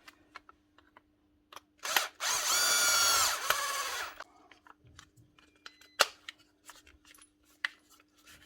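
Milwaukee cordless angle grinder switched on for a short test run with a freshly fitted 605 armature bearing. It runs with a steady high whine for about a second and a half, then winds down and stops. Light handling clicks come before and after.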